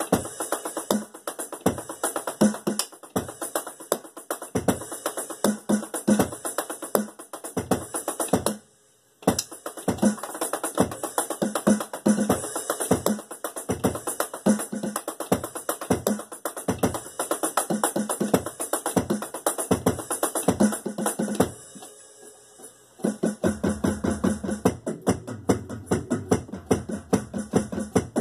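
Electronic drum kit played in fast, busy patterns of drum and cymbal hits. The playing breaks off briefly about a third of the way in and thins out about three-quarters through. After that a low, sustained bass line sounds under the drumming.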